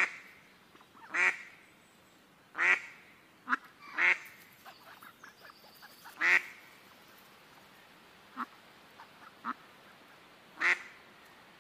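Domestic ducks quacking: loud single quacks every second or few, with softer short quacks and low chatter in between.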